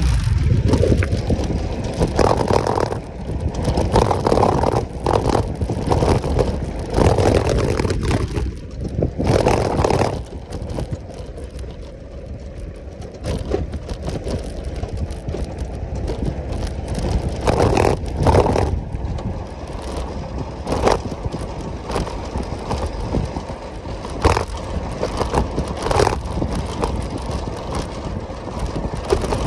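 Motorcycle riding over a rough dirt track: the engine running under a continuous low rumble, with frequent irregular knocks, rattles and gravel scrapes as the bike bounces over stones. It is quieter for a few seconds around the middle.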